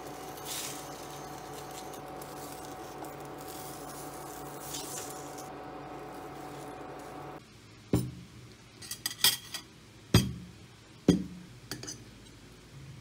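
Steady hum of an induction hob while a wooden spoon and spatula scrape and push a rolled omelette around a ceramic pan. About seven seconds in the hum cuts off, and a fork clinks sharply against a plate several times.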